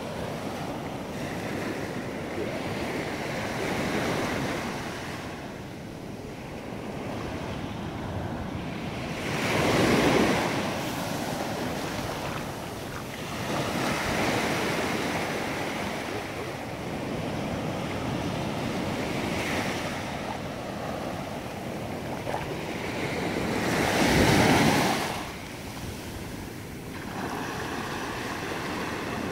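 Small surf breaking and washing up a sandy beach, in a steady rush with two louder wave surges, about a third of the way in and again after three-quarters of the way.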